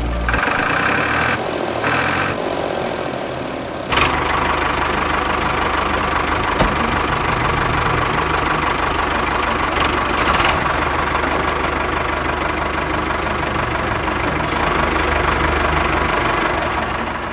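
A small motor running steadily, with a sharp click about four seconds in, after which it runs louder.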